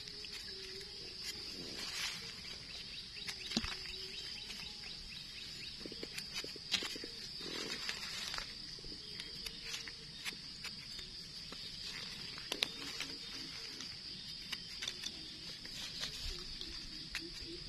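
Steady high-pitched insect drone, with dry leaf litter crackling and short clicks as mushrooms are cut with a knife and picked by hand.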